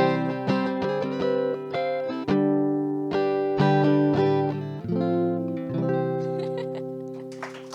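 Solo guitar closing out a song: strummed chords struck about every second or so, the last one about five seconds in left to ring and slowly fade.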